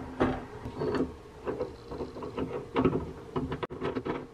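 Irregular small clicks and taps of hand work on a Racor 500-series fuel filter as its lid T-handle is turned down, over a steady low hum.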